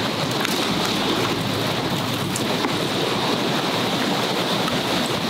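Wood fire burning under a camp grill, giving a steady crackling hiss with scattered small pops.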